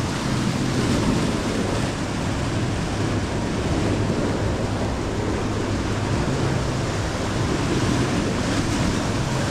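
Sea surf breaking and washing up a stepped concrete sea wall, a steady rushing wash, with wind buffeting the microphone.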